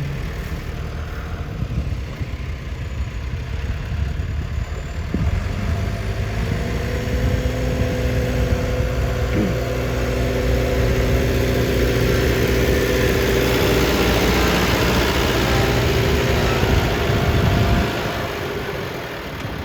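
Tractor engine working at a steady pitch, growing louder over several seconds as it comes close, then dropping off suddenly near the end.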